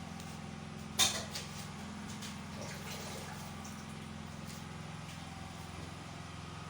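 Kitchen cooking sounds: a single sharp knock about a second in, like a utensil against a pot, over a steady low hum.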